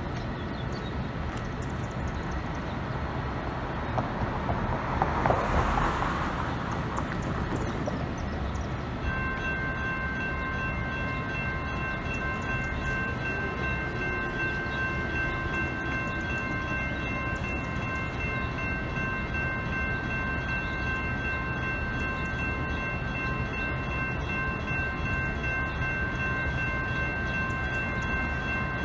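Railroad crossing electronic bells (US&S E-Bells) start ringing about nine seconds in and keep on in a steady, rapid ring as the crossing activates and its gates lower. Before that, a broad rush of noise swells and fades around five seconds in.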